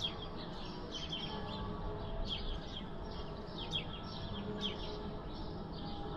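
Many short bird chirps, several birds calling at once, over church bells ringing, their steady tones lingering beneath the calls.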